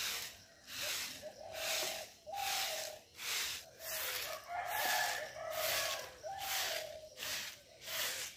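A short, soft-bristled hand broom sweeping a bare dirt yard in steady strokes, a scratchy swish about three times every two seconds. A chicken calls in the background through the middle.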